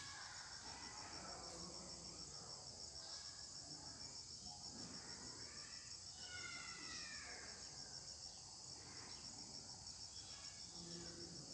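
Faint, steady high-pitched insect chirring, typical of crickets, with a fast, even pulse. A faint falling call is heard about six seconds in.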